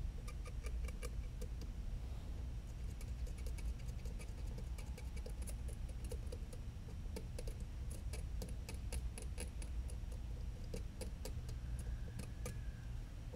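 Irregular light clicks and ticks of small hand tools and a circuit board being handled at a repair bench, sometimes several in quick succession, over a steady low hum.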